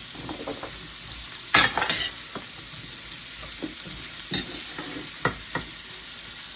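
Green beans and potatoes being tossed with a utensil in a pot, over a steady sizzle. Several sharp knocks of the utensil against the pot, the loudest about a second and a half in.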